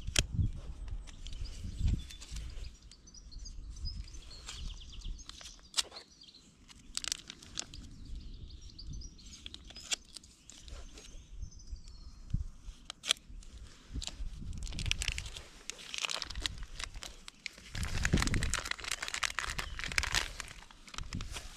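Knife cutting into a plastic sausage package, with clicks, scratching and crinkling of the plastic; the crinkling and tearing grow louder in the last few seconds as the package is pulled open and the sausages are drawn out onto a wooden board. Birds chirp in the background.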